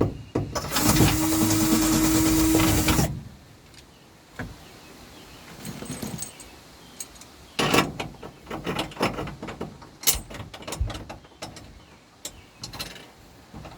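Power drill running at a steady speed for about two seconds, drilling out a bolt hole in a switch panel, then stopping suddenly. Later come a series of light clicks and rattles as the parts are handled.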